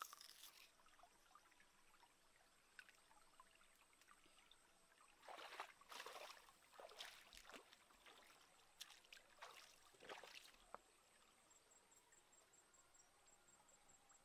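Near silence: a faint stream trickling over rocks, with a few short rustles of grass and brush about five to eleven seconds in.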